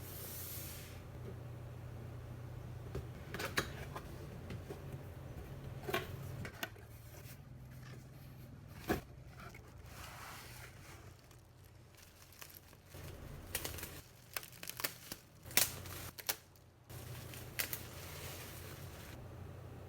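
Packaging of a boxed figure being handled and opened: crinkling plastic, tearing and scattered sharp clicks and knocks of handling, over a low steady hum that drops out now and then.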